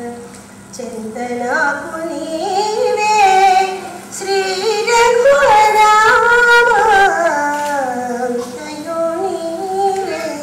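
A woman singing a prayer song solo into a microphone, in long held notes that slide up and down, climbing to its highest and loudest notes about halfway through.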